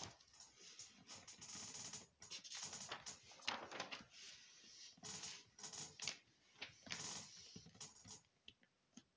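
Close handling noise: irregular rustling and scraping of paper or packaging being shuffled on a table near the microphone, tailing off near the end.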